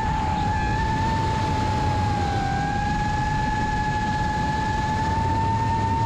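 Motor and propeller whine of a 5-inch FPV quadcopter with iFlight XING2 2207 motors and HQProp Ethix S5 props in steady flight: a single held tone that sags slightly in pitch for a moment about halfway through, then settles back. Wind rumbles over the microphone underneath.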